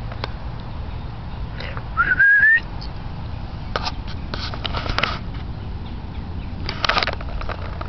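A person whistles once to call a dog: a single short rising whistle about two seconds in.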